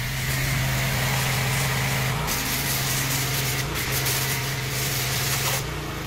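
Honda-engined petrol pressure washer running steadily while its spray jet hisses onto a motorcycle, sending foam over the bike. The spray cuts off near the end and the engine keeps running.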